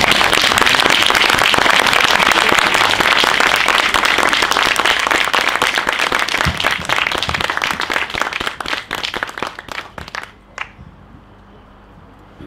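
Audience applauding: dense, loud clapping that thins into scattered claps and dies away about ten seconds in.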